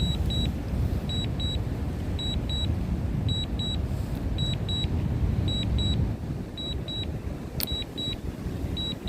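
Wind buffeting the microphone with a steady low rumble, under a drone controller's warning alert: pairs of short high beeps repeating about once a second. A single sharp click comes near the end.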